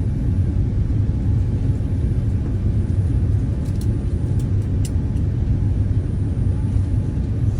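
Steady low rumble of a vehicle in motion, with a few faint ticks about midway.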